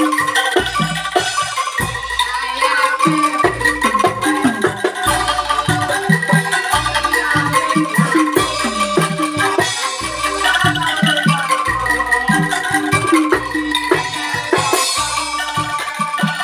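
A Banyumas kentongan ensemble playing traditional bamboo music: tuned bamboo instruments sound a melody over a steady beat of low thumps.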